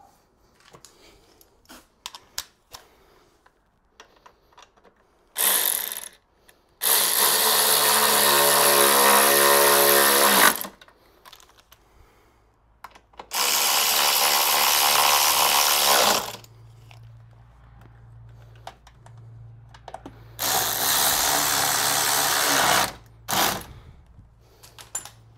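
Cordless power driver run in five bursts, from a fraction of a second to about four seconds long, driving in the bolts of a car's strut brace. Light clicks of tool handling come between the bursts.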